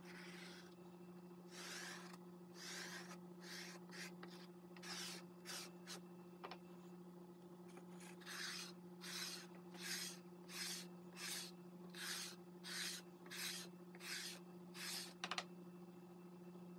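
A notched comb scraped again and again through wet wheat-starch paste and acrylic paint on paper, soft rasping strokes. They come irregularly at first, then in a steady run of about three strokes every two seconds, ending with a sharp click. A steady low hum runs underneath.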